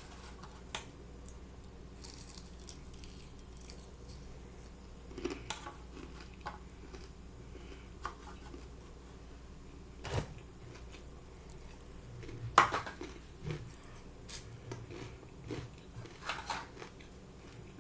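Crispy Korean fried chicken being pulled apart and eaten: scattered short crackles and clicks, a sharp one loudest a little past the middle.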